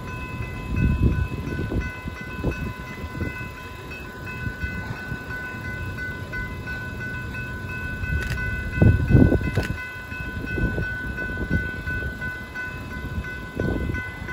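Railroad grade crossing's warning bells ringing steadily as the crossing activates, under an irregular low rumble that swells about a second in and again near the middle.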